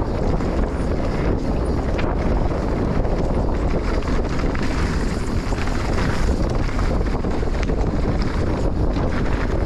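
Enduro motorcycle running on a trail ride, mostly buried under steady wind buffeting on the microphone.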